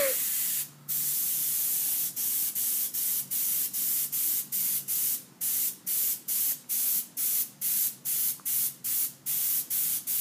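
Airbrush spraying paint with a steady hiss of air that cuts out briefly again and again, about two to three times a second, as the trigger is let off and pressed for short strokes.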